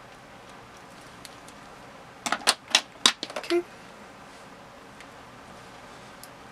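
Small makeup items clattering as they are handled: a quick run of sharp clicks and knocks about two seconds in, lasting about a second and a half.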